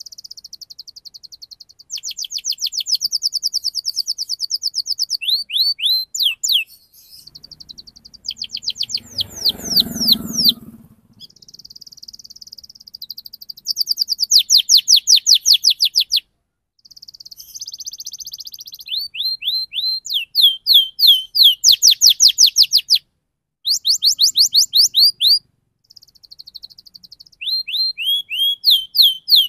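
Domestic canary singing a fast rolling song: rapid runs of repeated high chirps and trills, phrase after phrase with short breaks between. A brief low rumble sounds underneath about a third of the way through.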